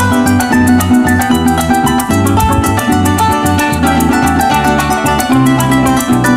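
Venezuelan llanera ensemble playing an instrumental passage: the arpa llanera leads with quick plucked runs over cuatro strumming, a bass line and a steady maraca shake.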